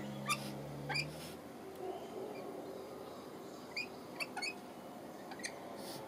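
Rainbow lorikeets giving short, high, squeaky chirps while feeding, scattered singly and in quick pairs every second or so.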